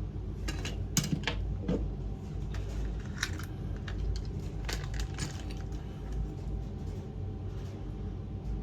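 Scattered sharp clicks and taps of a small toy RC excavator's plastic and metal parts being handled and turned over, coming thickest in the first five seconds and thinning out after.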